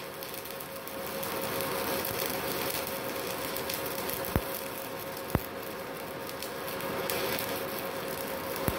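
Stick (MMA) welding with a MultiPro MMA 120 G-KRK inverter welder set to 120 A: the arc crackles and hisses steadily over a steady hum from the machine, with a few sharp pops.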